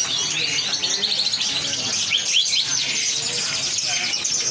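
Many caged songbirds chirping and whistling at once, a dense, overlapping chorus of short high calls, with people's voices murmuring underneath.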